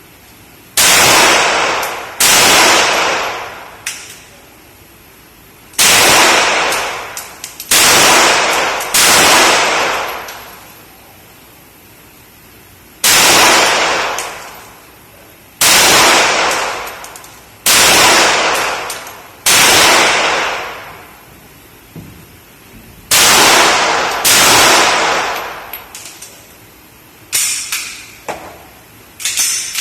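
A .380 pistol firing about eleven shots, singly or in pairs a second or so apart with gaps of a few seconds between, each shot echoing for over a second. Fainter sharp knocks come near the end.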